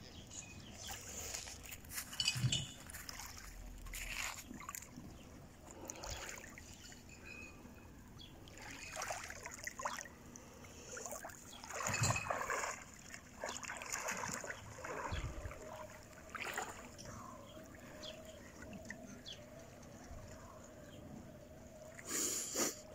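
Calm seawater splashing and lapping softly in irregular small swishes, as a child wades waist-deep and stirs the water.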